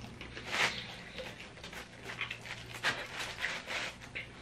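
A slice of pizza being pulled free from a cardboard delivery box: soft rustles and scattered light clicks of hand, crust and cardboard.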